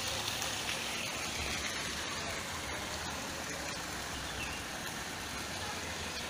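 Steady rushing splash of water pouring from an inlet pipe into a swimming pool, with a low uneven rumble underneath.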